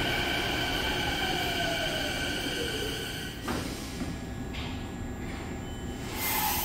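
Canada Line Hyundai Rotem electric train braking into a station: the traction motor whine falls in pitch as it slows, then stops with a clunk about halfway through. A burst of hiss starts near the end.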